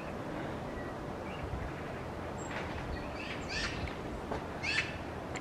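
A few short, high chirps from small birds over a steady outdoor background hum, with the loudest chirp near the end.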